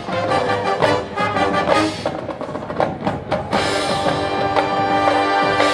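Marching band playing: a run of sharp percussion hits mixed with brass notes, then about three and a half seconds in the band holds a sustained chord.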